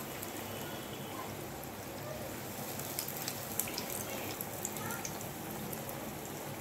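A kandarappam fritter deep-frying in hot oil: a steady sizzle with scattered small crackles and pops.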